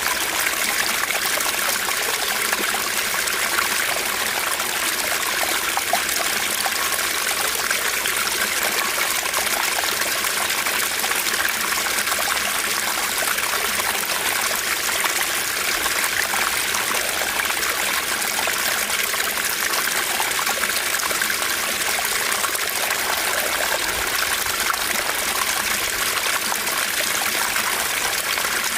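Small stream running steadily over its bed, an even rush of water, mostly high and hissy with little low rumble.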